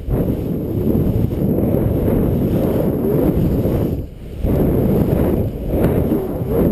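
Wind buffeting the camera microphone as a skier descends fast through snow: a loud, continuous low rumble that drops briefly a little after four seconds in.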